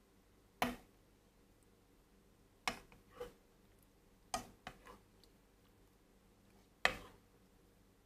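Plastic spoon knocking and scraping against a multicooker's inner bowl while scooping set homemade yogurt: about seven short clicks, spaced irregularly a second or so apart.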